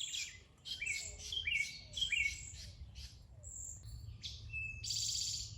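Birds chirping and singing: a run of short, quickly repeated high calls, then a few separate calls and a buzzy trill about five seconds in.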